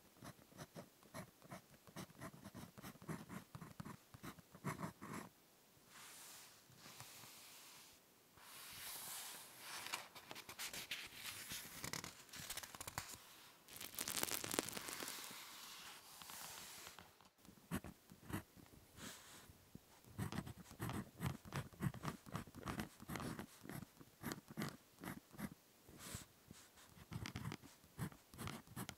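Ballpoint pen writing on paper in quick, short scratching strokes, close to the microphone. About a third of the way in the strokes give way to several seconds of steadier rustling, and near the middle the short pen strokes start up again.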